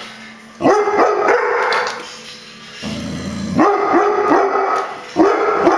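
Chocolate Labrador barking in three quick volleys of several barks each, with short pauses between them.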